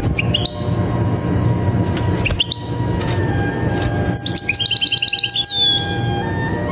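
European goldfinch singing, in the song style breeders call 'Shami': short rising chirps, then a fast run of about eight repeated notes ending in a falling note, over background music.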